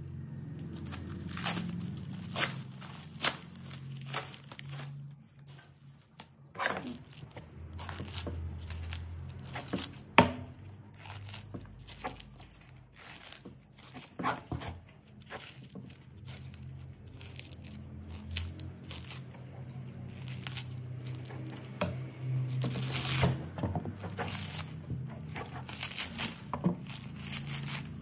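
Plastic cling film crinkling as it is peeled off a sprouted coconut, then the dry coconut husk fibres tearing and rustling as they are pried and pulled away with a knife and fingers. Irregular sharp crackles throughout, with one sharp crack about ten seconds in.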